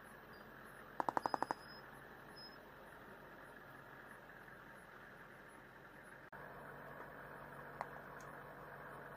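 A short burst of automatic gunfire about a second in, about seven shots in half a second, followed by steady low background noise.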